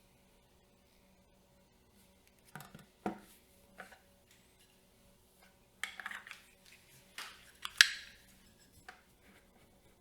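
Camera rig parts being handled and fitted by hand: a scattered run of small clicks, clinks and rustles, the sharpest click nearly eight seconds in.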